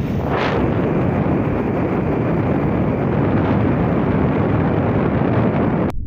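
Heavy wind rushing and buffeting over the microphone of a camera carried along a road, a dense, steady roar that cuts off abruptly just before the end.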